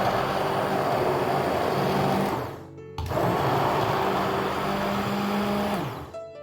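Blender motor running in two bursts of about three seconds each, puréeing cooked carrot soup, with a short pause between them. The motor whirs down as each run stops.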